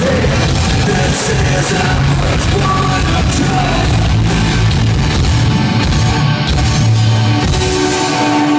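Loud heavy rock music with guitars, drums and vocals, played without a break.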